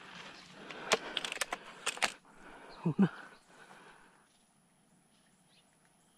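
Rustling in brush with several sharp clicks and knocks in the first two seconds, then two short, low, falling sounds about three seconds in.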